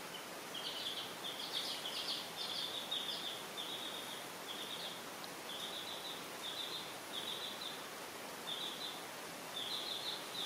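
Baby chicks peeping: short, high chirps in quick runs, a few pauses between them, over a steady background hiss.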